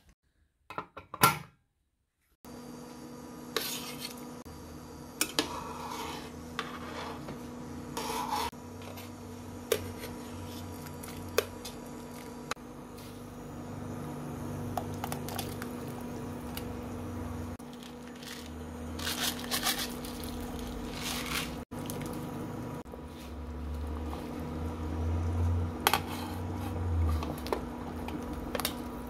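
Scattered sharp clinks and knocks of a stainless steel cooking pot, its lid and a metal spoon, over a steady electrical hum.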